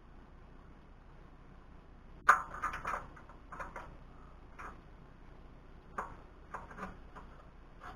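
Scattered light clicks and knocks of hand work on metal parts. The loudest comes about two seconds in, followed by a quick run of smaller clicks, then single taps every second or so.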